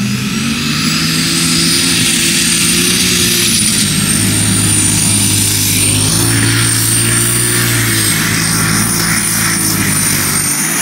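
Pulling tractor's engine running loud at high revs as it pulls the sled, holding nearly steady with small dips in pitch, with a high steady whine over it. The engine note drops off just as the run ends.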